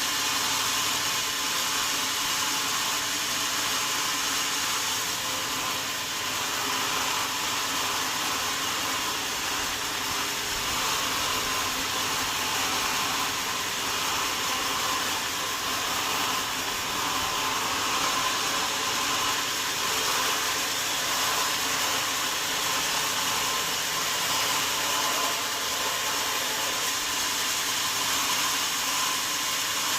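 Sawmill saw running steadily without a break, a constant whining hiss with an even hum under it.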